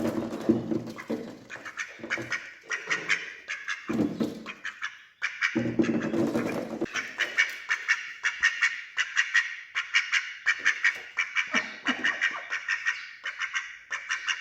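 Ducks quacking while they feed: low, harsh quacks at the start and again about six seconds in, then a fast run of sharp clicking, several a second, as they dabble at their food.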